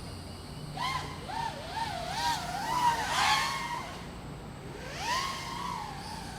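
5-inch FPV quadcopter's brushless motors and propellers whining in flight. The pitch wobbles quickly up and down with the throttle for a few seconds, then about five seconds in rises again, levels off and fades.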